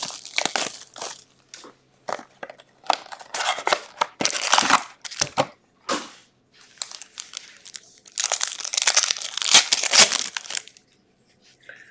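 Foil trading-card pack wrappers crinkling in irregular bursts as they are handled and one is torn open, the longest run of crackling coming about eight seconds in.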